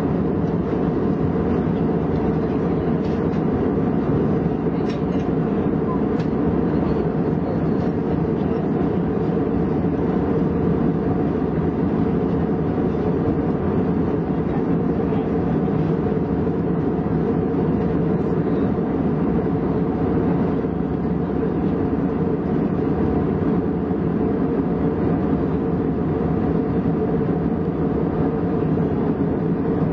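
Steady cabin noise inside an Airbus A320 in flight: the jet engines' drone and the rush of air past the fuselage. The sound is deep and even, with no change.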